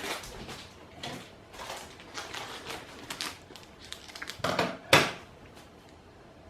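Someone rummaging for a pair of scissors: a run of small clicks and rattles, with two louder knocks about four and a half and five seconds in.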